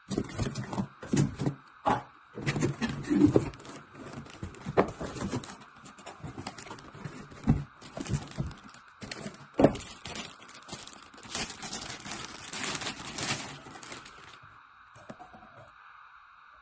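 Packaging being handled: plastic wrap crinkling and tearing, with irregular knocks and scrapes of parts and cardboard.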